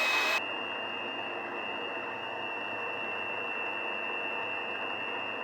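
Electric mixer motor running steadily with a high whine as it beats cake batter. Just after the start it drops slightly in loudness and its whine steps a little higher, then holds steady.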